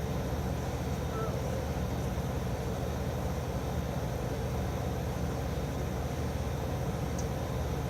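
Steady rumbling background noise with a hiss, unchanging throughout and with no distinct events.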